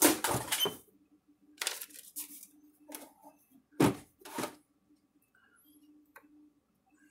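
Knocks and rattles of the front cover of a PEL 628 electric fence energizer being fitted and pressed onto its case, in a few bursts over the first four and a half seconds, the loudest at the very start and again near four seconds. After that only faint ticks.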